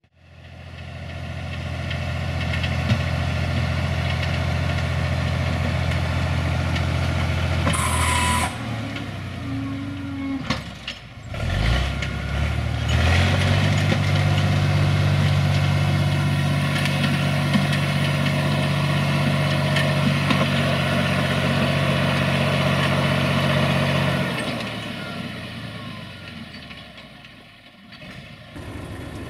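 SAME Laser 110 tractor's diesel engine running steadily. After a short break its revs rise about twelve seconds in and hold at a higher, steady speed, then the sound fades away near the end.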